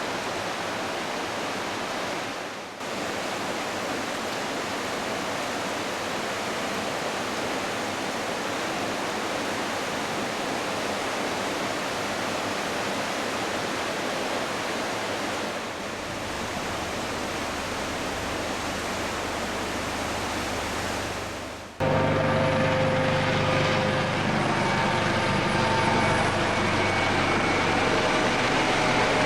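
Smith River in flood, with fast high water rushing in a steady hiss. About two thirds of the way through, after a cut, it turns louder and a steady engine drone with held tones joins the rush of water.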